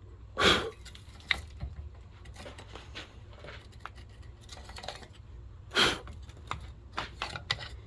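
Light clicks and taps of small objects being handled on a workbench, with two louder brief rustling scrapes, one about half a second in and one near six seconds.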